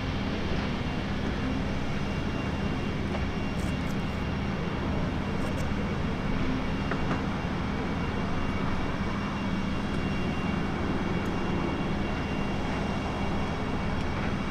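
Twin turboprop engines and six-bladed propellers of an ATR 42-500 on final approach, a steady hum with a constant low tone over even noise.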